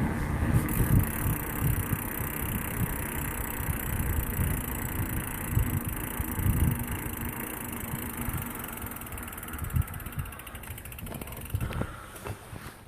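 Mountain bike's rear freehub ticking rapidly as the bike coasts, over the low rumble of its plus-size tyres rolling along the ground. It fades near the end.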